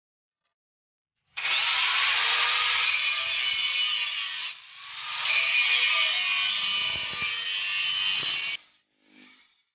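Handheld angle grinder with an abrasive disc grinding the steel of a chainsaw guide bar, throwing sparks. The grinding starts about a second in, dips briefly near the middle, then runs on and stops about a second before the end.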